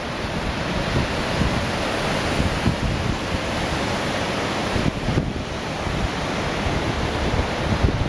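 Wind buffeting the camera microphone in uneven gusts over a steady rushing hiss.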